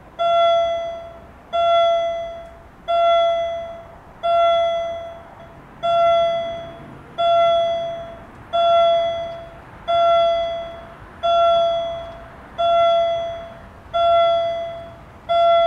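Railway level crossing warning bell ringing in even, separate strokes, about one every second and a half. Each stroke rings out clearly and fades before the next. It warns of an approaching train while the barriers lower.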